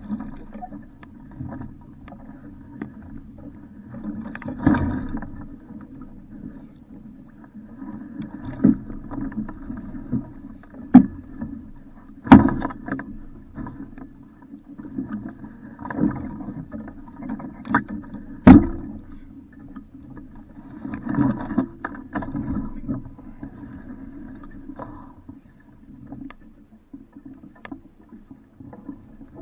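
Muffled, steady rushing of water and wind on a small sailboat, an Alcort Super Sailfish, with several sharp knocks on the boat, the loudest about 12 and 18 seconds in.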